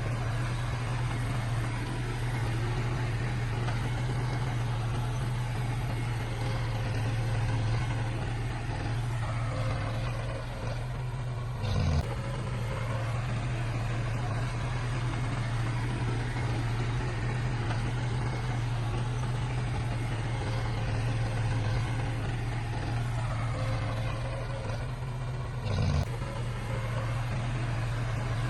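Heavy diesel engine of earthmoving machinery running steadily with a deep drone. Twice, about fourteen seconds apart, a falling sweep ends in a brief click.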